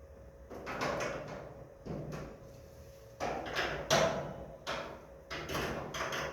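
A spanner working over the bolts on a sectional garage door's hinges and brackets: a run of short metallic scrapes and knocks at an uneven pace.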